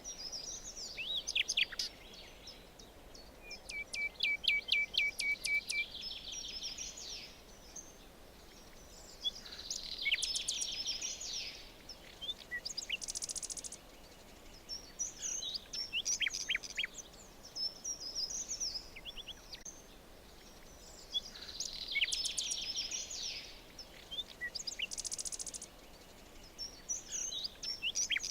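Several songbirds singing in a forest. One bird repeats a quick, warbled song phrase about every six seconds, and a rapid run of evenly repeated notes comes about four seconds in. Faint ambient hiss lies underneath.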